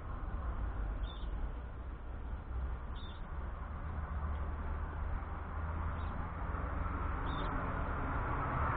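Steady background hum and hiss with a short high chirp about every two seconds, four in all, from a small bird.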